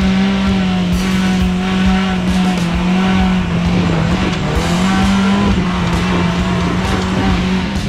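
Small off-road 4x4's engine running at a nearly steady pitch under light throttle as the vehicle crawls along a muddy dirt track.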